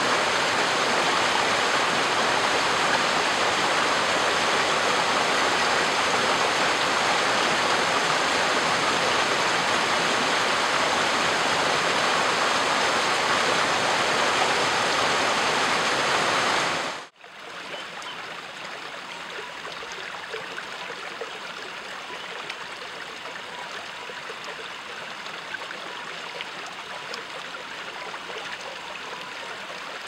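A river stream rushing steadily, an even wash of running water. About halfway through it cuts off abruptly, leaving a much quieter outdoor background with a few faint ticks.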